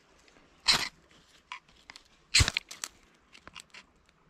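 Two short, hard scraping strokes of a metal edge worked by hand, one about a second in and one near the middle, with lighter scrapes and clicks between.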